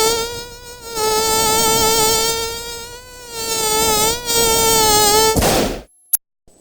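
Samsung SGH-E800 ringtone played on an MCP-MA7: a synthesized buzzing tone held at one pitch with dense overtones and a slight wobble, swelling and fading twice. It ends a little before the close with a short hiss and a click.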